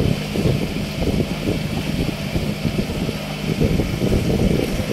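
An engine hums steadily while wind buffets the microphone with an uneven low rumble.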